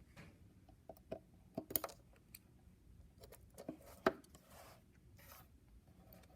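Metal tweezers clicking and scraping against a plastic breadboard while prying out one of its metal contact strips: scattered small, irregular clicks, two of them louder, with a couple of brief soft scrapes.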